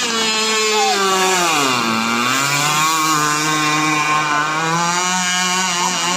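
Radio-controlled racing boat's motor running with a high buzz; its pitch falls about two seconds in and then holds steady.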